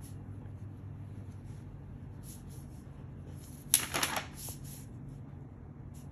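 Rustling and scraping of a pattern ruler and a large sheet of drafting paper being handled, with a short, sharper burst about four seconds in. A steady low hum runs underneath.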